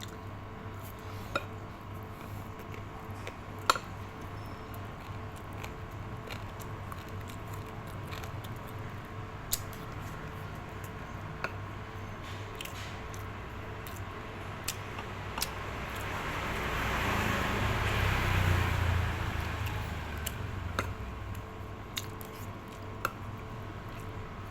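Kitchen handling sounds: scattered light clicks and taps of utensils and dishes over a steady hum, with a rushing swell that builds and fades over a few seconds about two-thirds of the way through.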